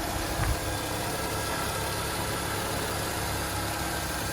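BMW E36 316i four-cylinder engine idling steadily and evenly on a freshly fitted replacement MAF sensor, its earlier rough, misfiring idle gone. A brief low thump comes about half a second in.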